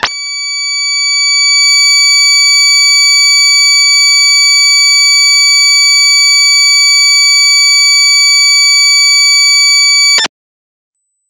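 A loud, steady, high-pitched tone, held unchanged for about ten seconds and then cut off suddenly.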